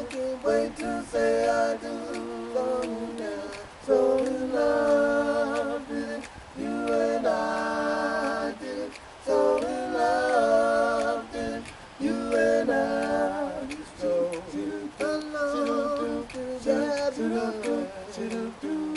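Male vocal trio singing a cappella in close harmony: several voices holding chords together in phrases of a few seconds, with short breaks between them.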